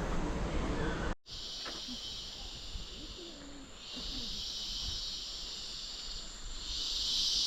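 A high, hissing insect chorus that swells and fades in three waves. It is preceded by about a second of low rumble that cuts off abruptly.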